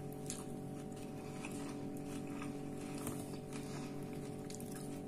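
Close-up chewing of a big mouthful of chicken sandwich, with scattered small wet mouth clicks, over a steady low hum.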